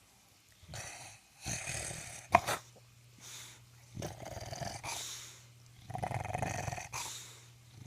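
English bulldog snoring in its sleep: a string of about five noisy breaths, each half a second to a second long, with short pauses between them. A brief sharp sound about two and a half seconds in is the loudest moment.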